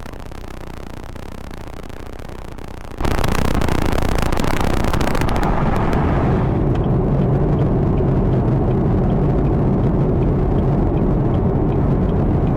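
Chevrolet Camaro ZL1's supercharged V8 cuts in suddenly and loudly about three seconds in. Its high-pitched hiss dies back a few seconds later, leaving a steady low engine drone.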